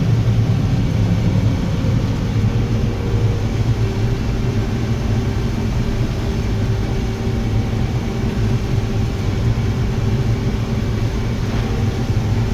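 Combine harvester running steadily while harvesting corn: a constant, unchanging low engine drone with a steady machinery hum over it.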